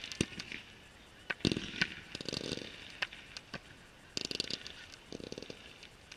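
Fireworks display: sharp single bangs from shells bursting, mixed with several bursts of rapid crackling stars, the longest of them about two seconds in and another about four to five seconds in.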